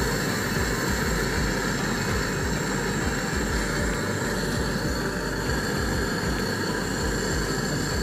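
Hose-fed gas brazing torch burning with a steady flame hiss, heating a copper pipe joint on a refrigerator compressor for brazing.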